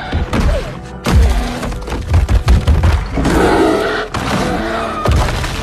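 Film soundtrack: music with heavy thuds and booming impacts, the thuds clustered in the first half, the music carrying on after them.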